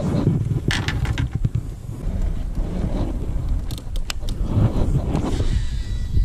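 Wind buffeting an action camera's microphone as a low rumble, with clicks and rattles from handling a baitcasting rod and reel. Near the end comes a short high whine, the reel's spool spinning out on a cast.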